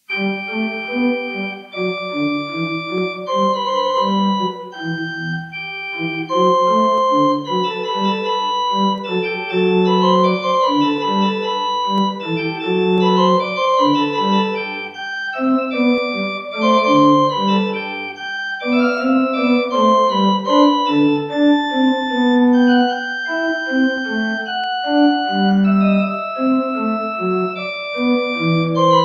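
Organ playing a slow piece in held chords, the notes moving step by step under a melody line.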